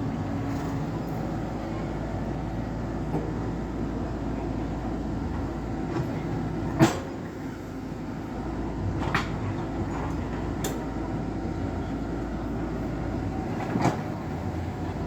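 Komatsu PC78 excavator's diesel engine running steadily, with a few sharp knocks over it, the loudest about seven seconds in.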